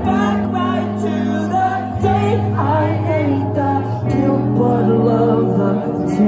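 Live post-hardcore band playing amplified music, sustained chords changing about every two seconds, with a voice singing over it.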